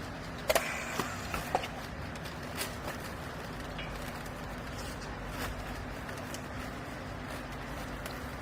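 Hydraulic clothes baler's power unit running with a steady hum, with a few sharp knocks and clicks in the first second and a half and two lighter ones around three seconds in.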